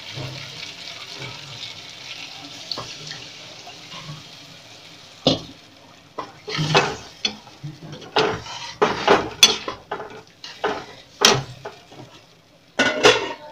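Fried masala in a pan sizzling and dying away after hot water is poured in. From about five seconds in, a spoon clinks and scrapes irregularly against the pan as the gravy is stirred.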